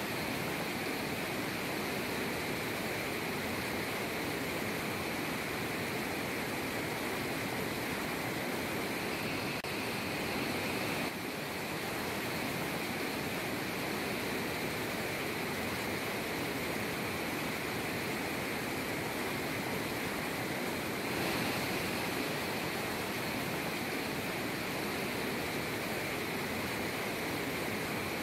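Rushing water of a rocky mountain stream, pouring steadily over boulders and small cascades.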